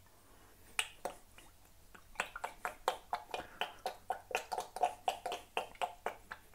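Olive oil glugging out of a bottle into a bowl: a couple of soft pops about a second in, then a quick run of them at about four or five a second.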